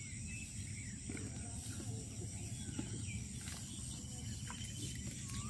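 Faint outdoor ambience of scattered short bird chirps over a steady high hiss, with a few soft clicks in the second half.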